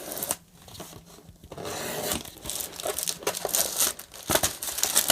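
Packaging of a new power supply being opened by hand: paper or plastic crinkling and tearing, sparse at first, then dense and continuous from about a second and a half in.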